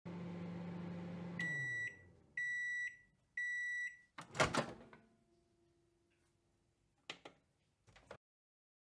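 Microwave oven running with a steady hum that winds down as it finishes, then three high end-of-cycle beeps about a second apart, then a loud clunk of the door being opened. Two faint clicks come near the end.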